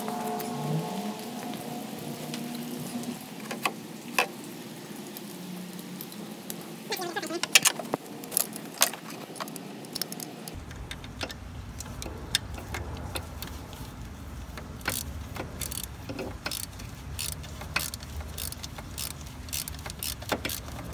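Hand tools clinking and clicking against the metal cooler-line clamp and fittings as its bolt is done up, with a few short squeaks about seven to nine seconds in and a denser run of irregular clicks in the second half.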